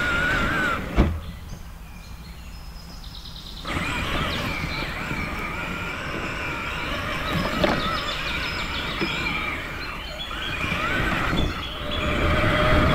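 Traxxas Summit electric RC monster truck's motor and gears whining, rising and falling in pitch with the throttle, over the rumble of its tyres on rough ground. There is a sharp knock about a second in, a brief let-off, and then it drives on.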